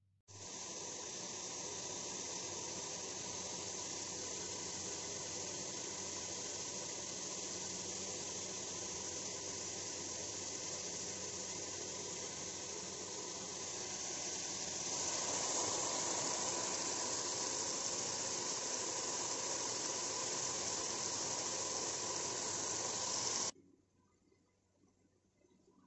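Steady, even hiss that grows louder and brighter about fifteen seconds in, then cuts off abruptly near the end.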